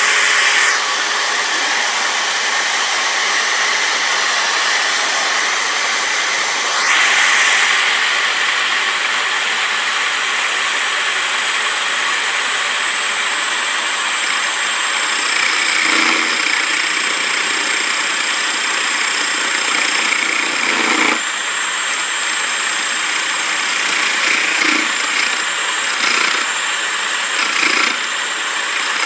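Electric drill powering a home-made lathe, its motor running with a steady high whine that rises in pitch about seven seconds in. Several short, louder bursts break in over the second half.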